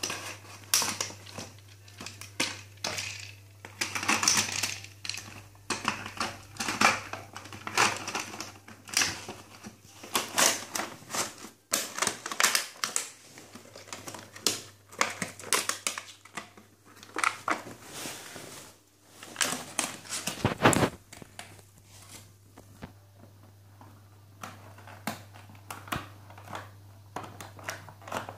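Cardboard toy box and its plastic packaging being handled by a child: irregular crinkling, rustling and clicking of cardboard and plastic, with one heavier knock about two-thirds of the way through.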